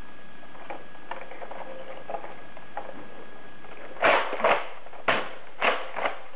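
Nerf Deploy CS-6 spring-powered foam-dart blaster being pumped and test-fired. About four seconds in come five loud, sharp plastic clacks in quick succession, each under a quarter-second long. Before that there are only a few faint clicks of the plastic shell being handled.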